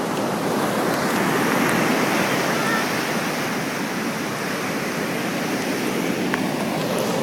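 Ocean surf washing onto the shore, a steady rush of surf that swells about a second in and then settles.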